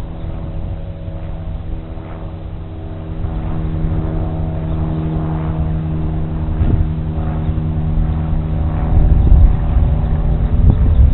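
Electric motors and propellers of an RC tricopter-airplane model running, a steady buzzing hum of several pitches that grows somewhat louder about three seconds in and again near the end, over a low wind rumble.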